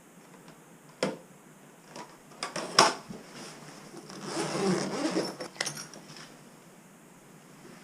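Hand-work noises: a few sharp clicks and knocks, the loudest about three seconds in, and a second or so of scraping or rustling near the middle.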